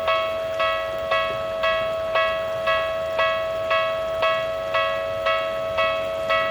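Japanese railway level-crossing warning bell ringing, a sharp clang about twice a second over a steady ringing tone: the crossing alarm sounding for an approaching train.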